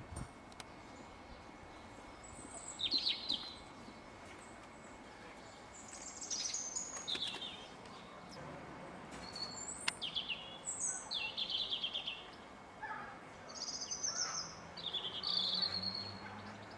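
Songbirds singing in short, high phrases, several of them rapid trills, with pauses of a second or two between them.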